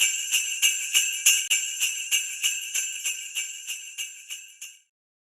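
Jingle bells shaken in a steady rhythm, about three shakes a second, growing fainter and stopping near the end.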